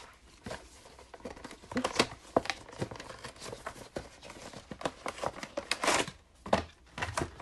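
Cardboard retail box being opened by hand and a plastic packaging tray slid out: a string of scrapes, rustles and small clicks of cardboard and plastic, sharpest about two seconds in and again near six seconds.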